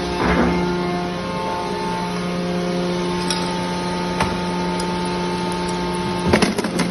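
Semi-automatic hydraulic metal baler running, its motor and pump giving a steady hum. A few sharp clicks come midway, and a burst of metallic knocks comes near the end.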